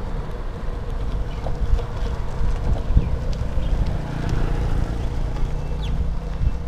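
Wind buffeting the microphone of a handlebar-mounted action camera on a moving bicycle, with low, irregular bumps from the ride. From about four seconds in, the engine of a garbage truck ahead is heard running under it.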